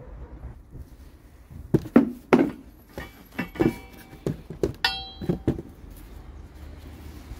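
Knocks and clinks of a black tubular steel motorcycle engine guard being handled, bumping against the plastic tub and table: about a dozen sharp hits over a few seconds starting near two seconds in, a few with a short metallic ring.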